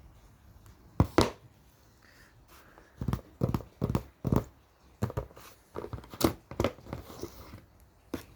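A large cardboard box being handled and opened: a string of sharp knocks and taps with rustling and tearing between them. The loudest is a double knock about a second in.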